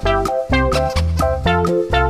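Upbeat background music with quick plucked and keyboard-like notes over a steady bass line.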